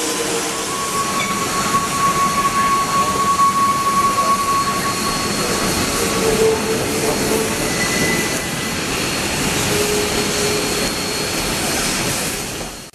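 Passenger train behind Shay geared steam locomotives rolling along a curve: steady rail noise with wheel flange squeal in thin high tones that come and go. The sound cuts off abruptly at the very end.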